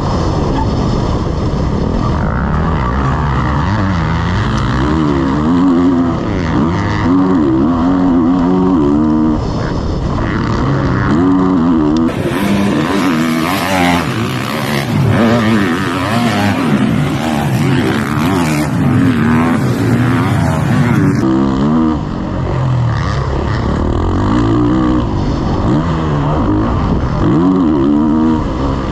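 Motocross bike engine revving hard, its pitch rising and falling over and over with the throttle and gear changes, heard from a camera mounted on the bike, with wind noise. For a stretch in the middle the sound changes to a trackside recording of a motocross bike running on the track.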